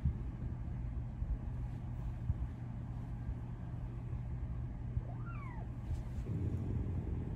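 Silver Bengal cat giving one short meow about five seconds in, its pitch rising then falling, over a steady low rumble.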